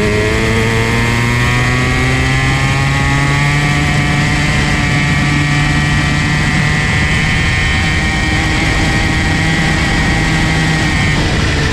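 Comer C50 50cc two-stroke kart engine running under throttle, its pitch climbing over the first few seconds and then holding high, with a brief drop near the end.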